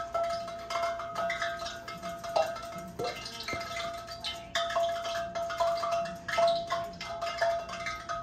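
Light background music with a held note, over soft clicks and scrapes of a fork working chicken through a bowl of seasoned flour.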